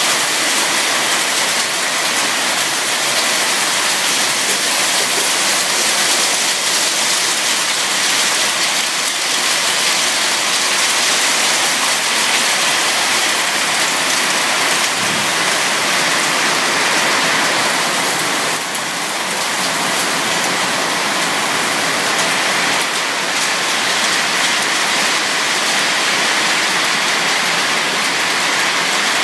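Heavy monsoon downpour: a loud, steady hiss of rain that runs on without a break.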